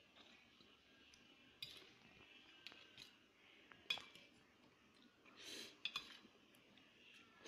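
Metal fork and spoon clinking and scraping against a stainless steel plate several times, the sharpest clink about four seconds in. A short slurp of noodles comes about five and a half seconds in.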